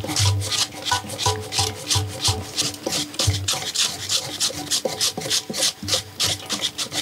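Knives shaving banana-tree stems into thin slices, several blades at once, a quick rhythmic scraping of about four strokes a second with light thuds of the blades among it.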